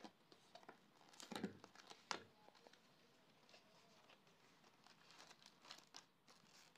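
Faint rustling and crinkling as a cardboard box of wrapped wafer bars is opened and handled by hand. The two loudest crackles come about a second and a half and two seconds in.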